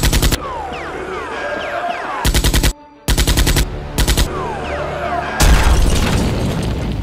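Bursts of rapid machine-gun fire sound effects, about ten shots a second, over background music, with whizzing bullet-like swishes between the bursts. There are five bursts; the last, about five and a half seconds in, is the loudest and dies away slowly.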